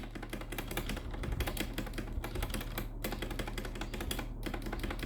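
Mechanical keyboard spacebar pressed rapidly and repeatedly on an Akko CS Sakura switch: a dense run of clicks broken by a few short pauses.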